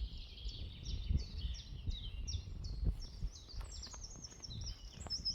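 Wild birds singing: a busy run of short, high chirps that grows louder near the end, over a low rumble.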